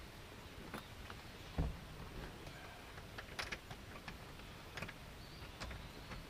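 Scattered light clicks and taps, with one duller knock about one and a half seconds in, from hands handling hinge hardware and screws inside a plastic boat-seat base.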